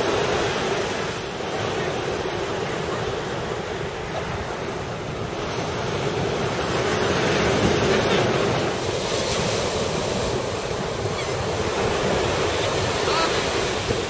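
Steady wash of surf on the beach, with wind buffeting the microphone.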